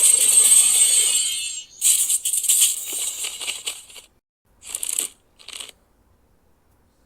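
Bright jingling sound effects for a cartoon, like shaken bells or a tambourine, in bursts: a long one, another starting about two seconds in, then two short ones around five seconds in.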